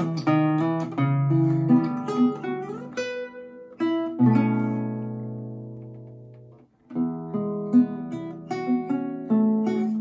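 Solo classical guitar, an 1852 Augustin Altamira Codina instrument, played fingerstyle: a run of quick plucked notes, then a chord about four seconds in that is left to ring and die away. After a brief pause, quick plucked notes start again.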